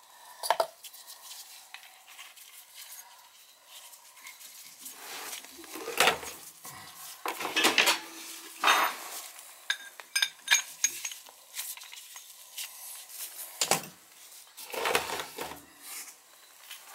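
Metal tools and pipe fittings clinking and clanking against each other in an irregular series of knocks and scrapes, a few with a short metallic ring, during plumbing work on a cast iron radiator.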